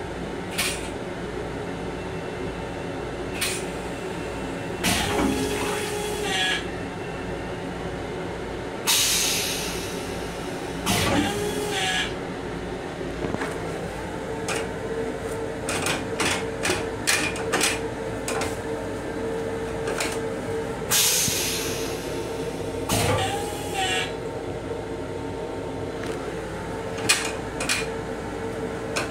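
Steady running noise inside an LIRR M7 electric railcar, with a hum that comes in about halfway. Over it come repeated short clatters, clicks and squeaks.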